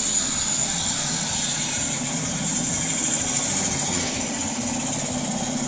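Recorded helicopter turbine-and-rotor sound effect played through the scale model's built-in speaker, running steadily with a high whine.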